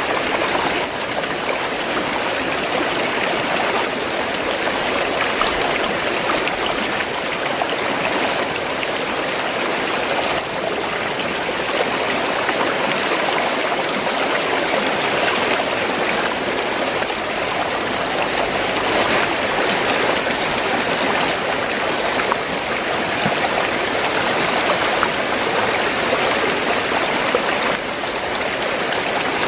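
Fast-flowing stream water rushing and gurgling, a steady, continuous sound.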